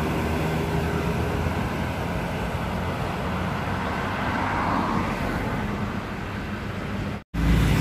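Intercity bus engine and tyres moving away down the road, over steady traffic noise. The sound cuts out for an instant near the end and comes back as louder, closer traffic.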